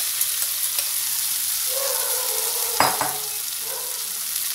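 Hot oil tempering sizzling steadily in an aluminium pan under freshly added soaked poha mixture. A single sharp knock comes about three seconds in.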